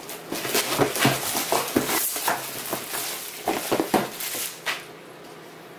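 Packaging being torn open and handled by hand: an irregular run of crackles and rustles from the shipping box and its plastic wrapping, which stops about four and a half seconds in.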